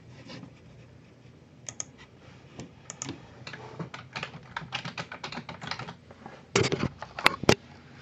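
Typing on a computer keyboard: a run of quick, light keystrokes, then a few louder knocks and clicks near the end.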